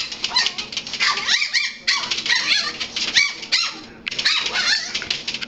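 A dog whining and yipping in high-pitched cries that rise and fall, with a rapid clicking between them.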